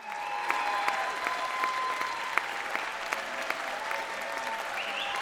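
Audience applauding, with individual claps standing out.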